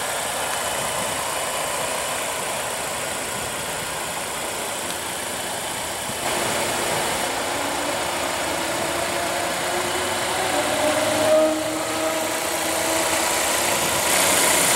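2016 Volvo XC90's 2.0-litre supercharged and turbocharged four-cylinder engine idling steadily, growing a little louder about six seconds in.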